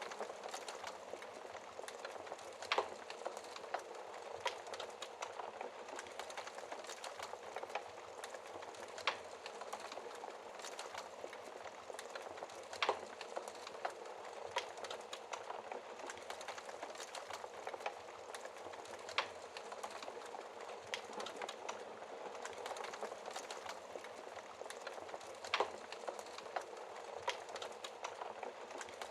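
Wood fire crackling in a fireplace: a steady hiss full of small crackles, with a sharper pop every few seconds.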